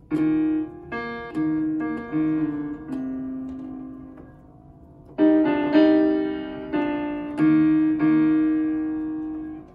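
Piano-type chords from a software instrument, played on an Arturia KeyLab Essential 61 MIDI keyboard controller and heard through small desktop speakers. One run of struck, fading chords, a short pause about four and a half seconds in, then a second run of chords that stops just before the end.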